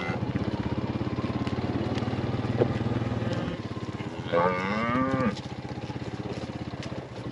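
A cow moos once, a single call that rises and then falls, about four seconds in, over a vehicle engine running with a steady rapid pulse. The engine's low hum drops a little just before the moo.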